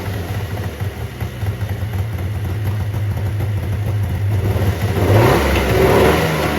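Subaru R-2's air-cooled 360cc two-stroke twin running steadily, then revving up about five seconds in.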